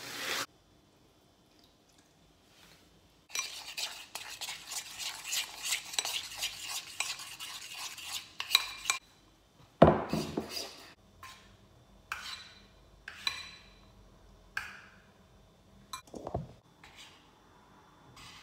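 Metal spoon stirring batter in a ceramic bowl, scraping and clinking against the bowl for several seconds. About ten seconds in comes a single loud knock, followed by short, scattered stirring strokes.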